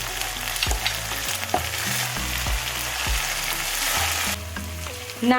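Coconut-cream curry sauce with its oil separated, with Massaman paste and shrimp paste, sizzling in a pan while being stirred, with a few sharp taps of the utensil. The sizzling thins out about four seconds in.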